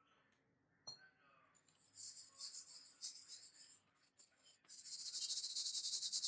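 Rapid hand-scraping strokes, a dry high hissy rasp made of many fine, fast strokes, as in abrasive work on the saw. It starts about two seconds in and becomes louder and steadier a little past halfway.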